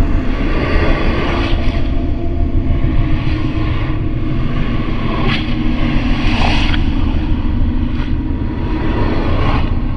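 Layered horror ambience: a loud, steady deep rumble under a hissing wash that swells and fades every second or two, with a few brief sharp accents.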